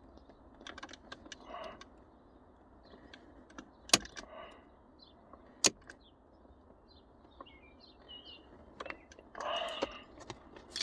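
Plastic shifter parts being handled and pressed together by hand: scattered small clicks, two sharp, loud clicks about four and five and a half seconds in, and a burst of clicking and rattling handling noise near the end.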